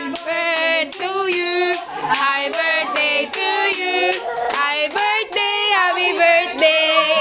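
A song being sung, with people clapping along in time, about two claps a second.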